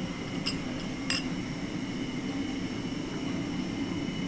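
Steady drone of kitchen equipment, with two light metallic clinks in the first second or so from a ladle against the wok or a bowl.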